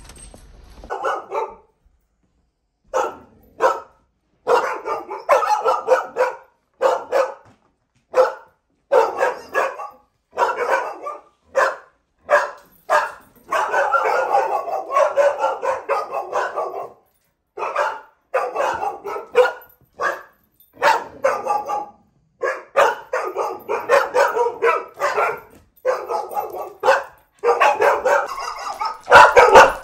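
German shepherd barking over and over, in runs of several barks with short pauses between them, louder near the end.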